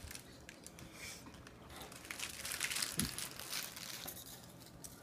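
Crackers being slid and laid out on paper towels on a table: light paper rustling and crinkling with small clicks, busier in the middle. There is a sharper knock about three seconds in.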